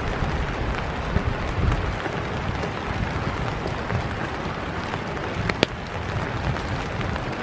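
Steady hiss of rain with footsteps on a wet boardwalk path and a low, uneven rumble of wind or handling on the microphone; a few sharp ticks stand out.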